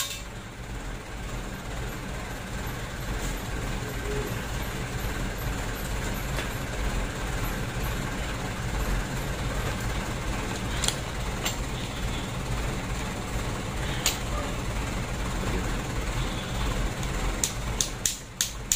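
Steady low mechanical hum, with a few isolated sharp clicks. Near the end comes a run of sharp clicks, about three a second, as a ratchet wrench is worked on the engine block.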